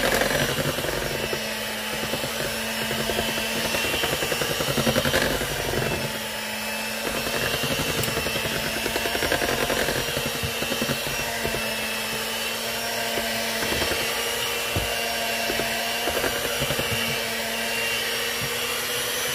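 Electric hand mixer running steadily with an even motor hum, its beaters churning thick cake batter in a metal bowl, with a few faint clicks.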